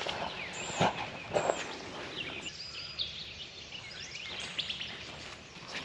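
Wild songbirds chirping and calling, many short high sweeping notes, with two brief knocks or rustles about a second in.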